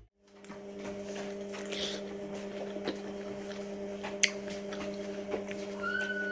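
Steady electrical hum in a small room, with scattered light clicks and taps and a brief high squeak about six seconds in.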